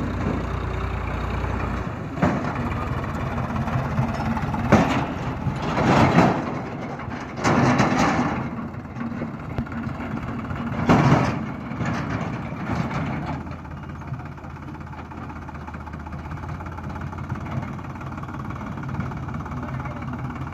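Sonalika DI 35 RX tractor's diesel engine running steadily, with several louder surges of noise in the first half, then settling to a quieter steady run.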